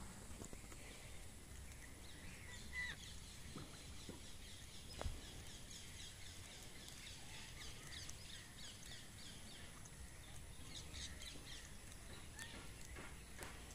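Faint outdoor ambience with a low wind rumble. Through the middle, birds chirp in quick, high, repeated notes, and there is a single soft knock about five seconds in.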